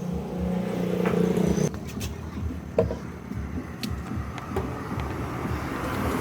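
A motor running: a steady low hum that drops away about one and a half seconds in, then an uneven low rumble with a couple of sharp clicks.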